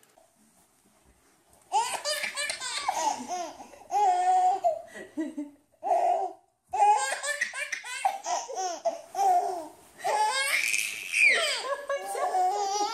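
A baby laughing in repeated bursts of belly laughs, starting after a second or two of near silence.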